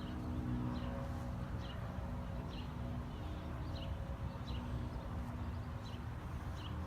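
Short high chirps repeating about once a second over a steady low rumble with a faint hum.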